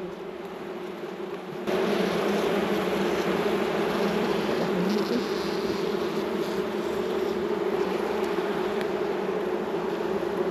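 Honey bees buzzing around an opened hive during a frame inspection: a steady, dense hum that becomes suddenly louder about two seconds in.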